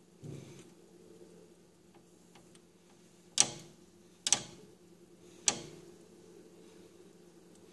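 Sharp clicks over a faint, steady low hum: one click, then a quick double click about a second later, then one more about a second after that, each with a short ring.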